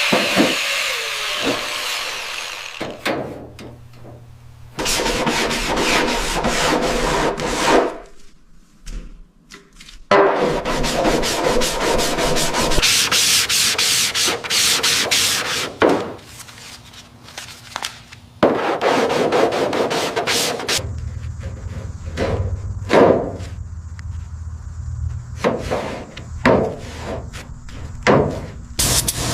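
Sanding and rubbing on the car's bodywork, in a series of short clips cut together, the sound changing abruptly every few seconds with brief quieter gaps between stretches.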